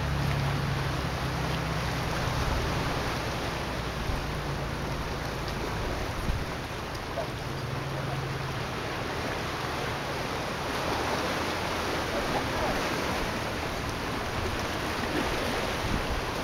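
Gentle sea water washing against shoreline rocks, a steady rushing hiss. Under it a low steady hum fades out about six seconds in and comes back briefly a couple of seconds later.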